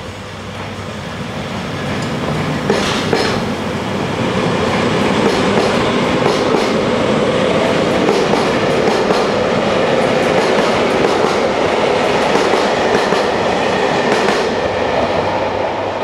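JR Hokkaido 789-series electric limited express pulling out and running past, its wheels clicking over rail joints. The sound builds over the first few seconds, with the sharpest clacks about three seconds in, then holds steady and loud.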